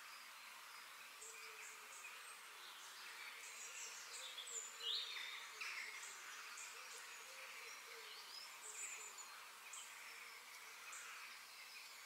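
Faint outdoor nature ambience: scattered short bird chirps and quick whistled glides over a steady high hiss like insects, a little busier around the middle.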